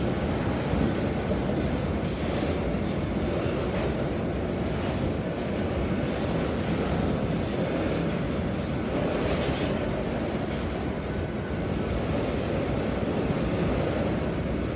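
Loaded hopper cars of a Union Pacific gravel train rolling steadily past: a continuous rumble of steel wheels on rail, with short high-pitched wheel squeals now and then.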